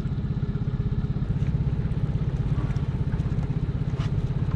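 Boat's outboard motor idling steadily, an even low putter.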